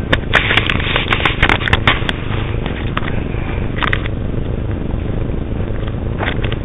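Footsteps crackling over dry twigs and debris on a dirt trail, a quick run of crackles in the first two seconds and a few more later. Under them runs a steady low rumble.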